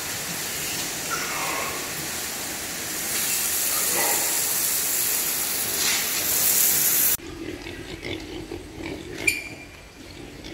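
Water spraying hard from a hose onto a concrete pig-pen floor: a loud, steady hiss that grows louder about three seconds in and cuts off abruptly after about seven seconds. Then pigs grunting softly, with a sharp click near the end.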